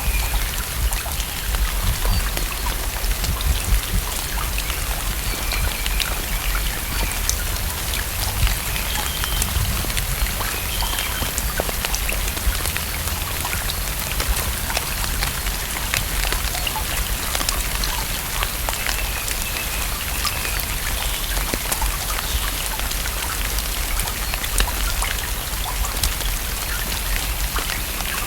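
Steady rain falling on a lake's surface, with many separate drop impacts ticking through a constant hiss of rainfall.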